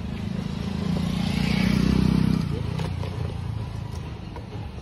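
Motor vehicle engine running, swelling to its loudest about two seconds in and then easing off.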